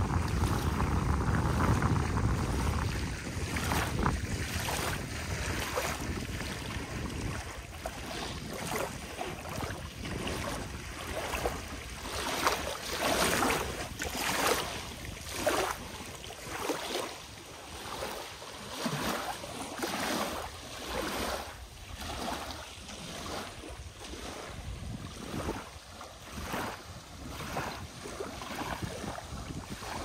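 Small waves lapping at a lake shore in a run of short swishes, roughly one a second. Wind buffets the microphone for the first several seconds, then eases.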